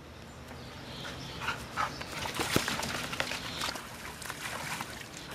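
Black Lab puppy splashing and biting at the water in a plastic kiddie pool filled by a garden hose: a string of irregular small splashes and slaps of water.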